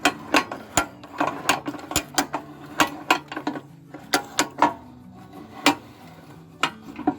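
Ratchet on a tow dolly's tie-down strap being worked to tighten the strap: a run of sharp pawl clicks, several a second at first, thinning to single clicks in the last couple of seconds.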